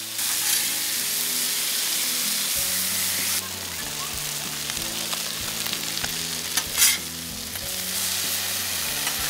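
Fish fillets and broccoli sizzling on a hot, oiled gas flat-top griddle: a steady frying hiss that eases a little about three and a half seconds in, with a short knock about two-thirds of the way through.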